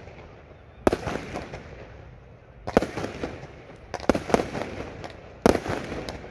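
Aerial fireworks going off overhead: a string of sharp bangs, about five loud ones roughly a second apart, with smaller crackling pops in between.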